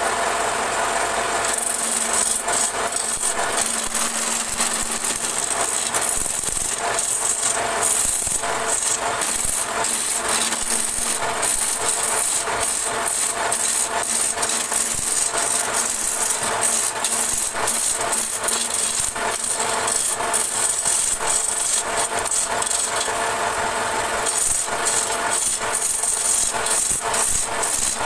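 A belt-driven wood lathe runs with a steady hum while a long-handled turning tool scrapes and chatters against the spinning wooden blank, cutting grooves into it.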